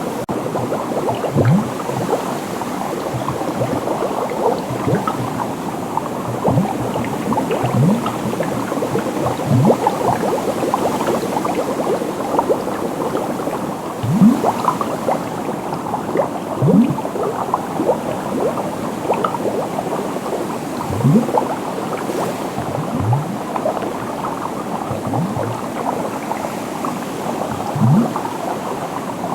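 Water bubbling steadily: a dense stream of small bubble pops, with a larger, deeper bubble blooping up in pitch every second or two.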